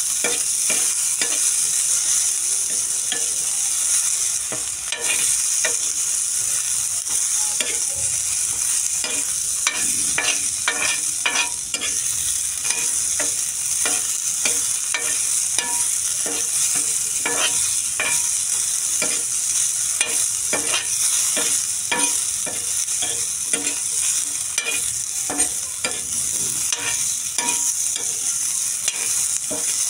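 Cubed vegetables sizzling in hot oil in a black pan with a steady high hiss, while being stirred, with frequent short scrapes and clicks against the pan.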